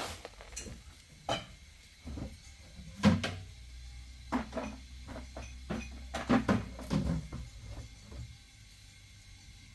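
Irregular knocks and clinks of hard objects being handled, like pots and dishes, about a dozen over several seconds, the loudest about three seconds in. A low hum lies underneath from about three seconds in until about eight seconds.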